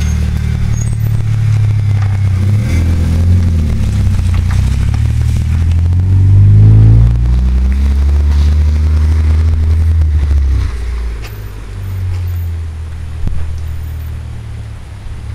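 1998 Mitsubishi Eclipse engine and exhaust, a deep drone that rises in pitch twice as the car pulls away and accelerates, loudest about six to seven seconds in. It drops off sharply about ten seconds in as the car gets further away.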